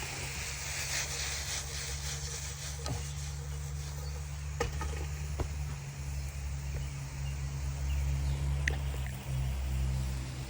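Cooking in a pot: a few sharp clinks of a utensil against the pot, with a faint hiss early on, over a steady low hum.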